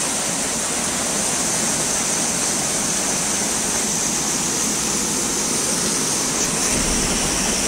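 Steady rushing of water, loud and even throughout, with no distinct events.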